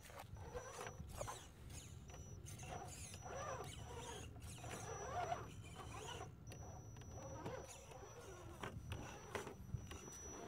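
Electric motor and geared drivetrain of a 1/10-scale RC rock crawler whining in short, uneven pushes as it crawls over rock, the pitch rising and falling with the throttle, with scattered clicks.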